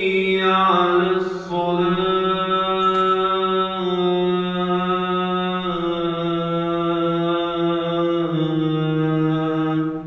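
A single man's voice chanting Islamic religious phrases in long, held notes, shifting pitch a few times. It stops near the end, leaving a brief echo in the mosque's prayer hall.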